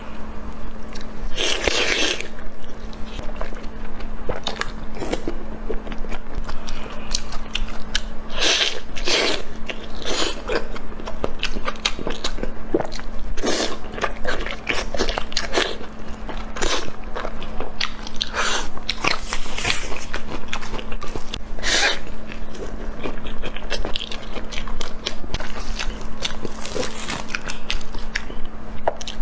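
Close-miked mukbang eating: irregular crunchy bites and chewing, with a crisp crackle on many of the bites.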